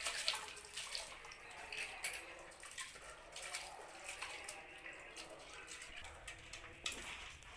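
Hot water in a cooking pot splashing and bubbling as rice is tipped in, with scattered light clicks and clinks of a utensil against the pot.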